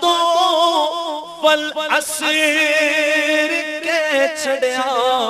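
A man singing a Punjabi naat without instruments, holding long notes with a wavering, ornamented pitch.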